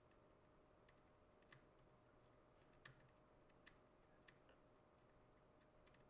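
Near silence: faint room tone with a steady low hum and a few faint, scattered clicks.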